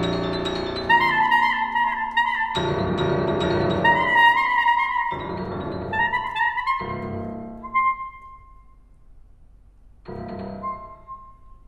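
Alto saxophone and Steinway grand piano playing a contemporary classical scherzo: quick high saxophone figures over struck piano chords, thinning out and growing quieter about eight seconds in, then one last short soft phrase ending on a held high saxophone note near the end.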